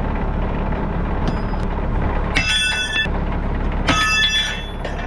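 Tractor engine running steadily, with sharp metallic clanks that ring on briefly, about two and a half seconds in, again a second and a half later, and once more near the end: a steel hitch pin thrown at the tractor's hitch, striking metal and missing.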